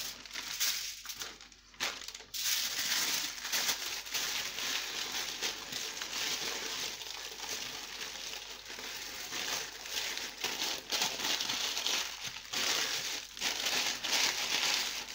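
Aluminium foil crinkling and crackling as it is folded and wrapped by hand.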